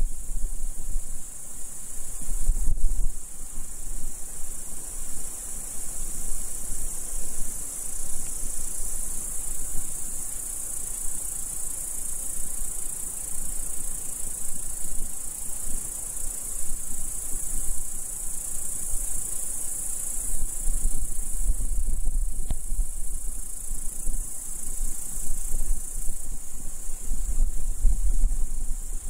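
Steady high-pitched chirring chorus of meadow insects, crickets and grasshoppers, in summer grassland. Low wind rumble on the microphone swells in gusts a couple of seconds in, past twenty seconds and near the end.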